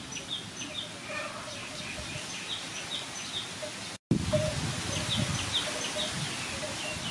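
Birds calling: a steady run of short, high, downward chirps about three a second, with a lower repeated note beneath. A brief dropout about four seconds in, after which a low rumble of noise sits under the calls.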